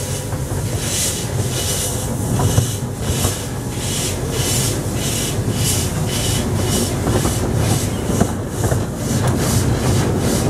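Exmoor Steam Railway-built 2-6-2 miniature steam locomotive pulling away with its train: steady exhaust chuffs, about two a second and gradually quickening, over the rumble of the carriage wheels on the track.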